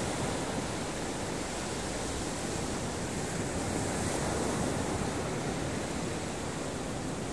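Ocean surf washing onto a beach: a continuous wash of breaking waves, swelling slightly about halfway through.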